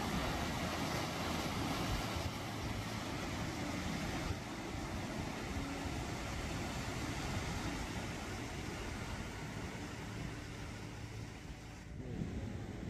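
Steady rush of wind and ocean surf, which drops away abruptly near the end.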